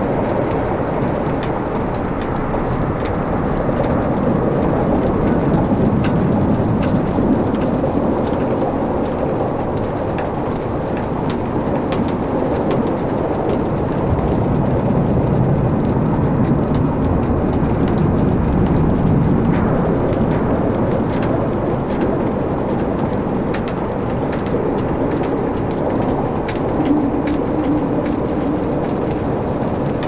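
Wood fire burning in a fireplace: a steady low rumble of flames, with scattered small crackles and pops from the burning logs.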